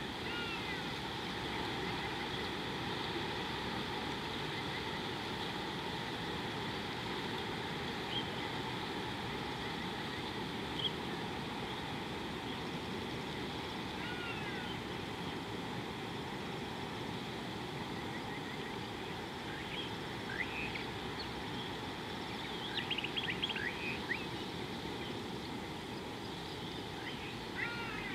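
Steady low outdoor background noise with scattered short bird calls: single high chirps every few seconds and a quick run of calls about two-thirds of the way through.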